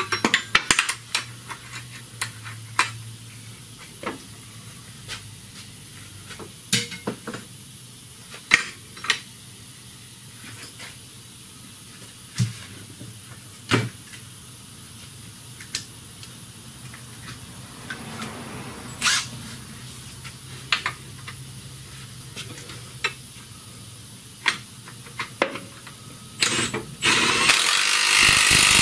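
Scattered metallic clinks and knocks of hand tools against bolts and the steel cross-member under a car, then a cordless power tool running in one burst of about two seconds near the end.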